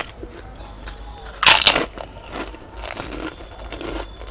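Eating sounds: one loud crunchy bite about a second and a half in, then softer chewing and crackling.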